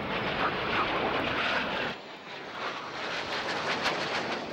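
Jet noise from A-4 Skyhawk jets flying past, a steady rushing noise. About halfway through it drops and changes abruptly at a cut, then goes on as the four-jet formation passes.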